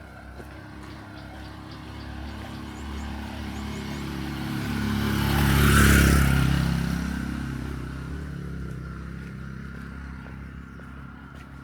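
A motor vehicle drives past. Its engine grows steadily louder, peaks about six seconds in, then fades away.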